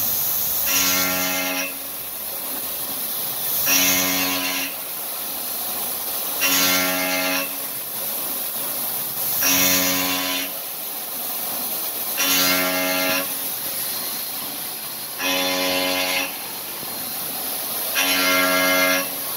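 Five-axis CNC profile machining center milling an aluminium part: the spindle's end mill cuts in repeated passes. Each pass gives a steady pitched tone of under a second, seven times about every three seconds, over a constant high hiss.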